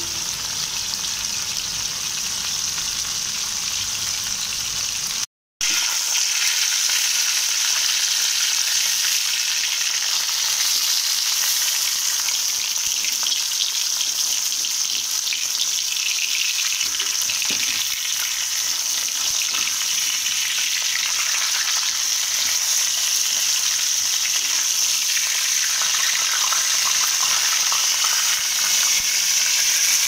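Small whole river fish shallow-frying in hot oil in an iron kadai: a steady, bright sizzle. A spatula now and then scrapes the pan as the fish are turned. The sound cuts out for a moment about five seconds in.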